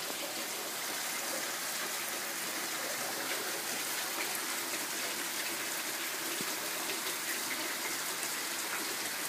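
Rain falling steadily, with water running and splashing in a small cascade.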